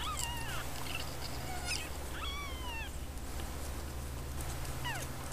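Two-week-old Siamese kittens mewing while nursing: three short, high-pitched mews that each fall steeply in pitch, near the start, about two seconds in and near the end, over a steady low hum.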